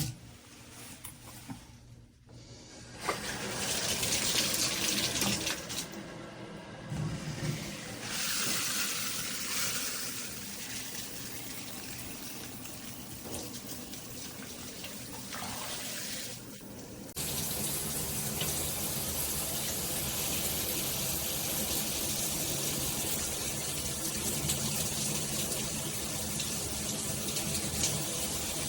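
Water spraying from a FASTRAS handheld shower head. The spray starts about three seconds in, shifts in strength a couple of times, then settles into a louder, steady rush a little past halfway.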